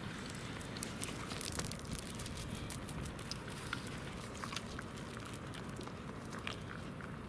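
Scattered sharp clicks and crackles on frozen lake ice as Pembroke Welsh corgis walk and nose about on it, over a low steady rumble.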